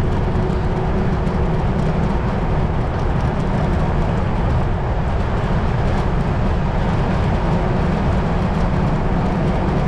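Wind rushing over the microphone of a bicycle coasting fast downhill: a steady, loud low rumble with hiss over it.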